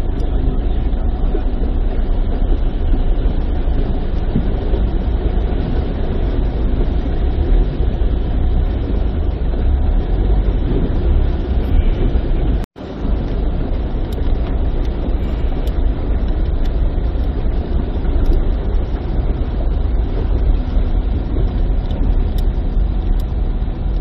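Steady, loud rumbling noise of vehicles driving through floodwater and of water rushing, broken off for an instant about halfway through.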